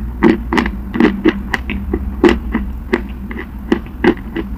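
Close-miked chewing of a mouthful of brittle clay: a steady run of crisp crunches, about four a second.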